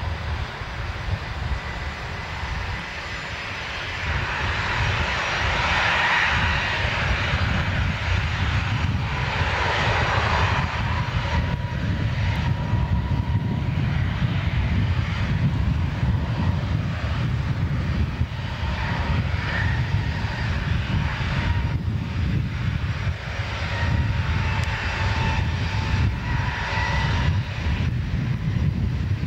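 A-10 Warthog's twin General Electric TF34 turbofan engines running as the jet taxis, a steady high whine over a low rumble. It grows louder about four seconds in.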